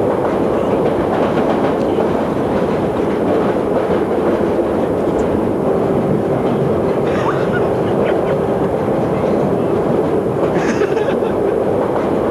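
Underground train carriage running, heard from inside: a steady rumble with a constant tone through it.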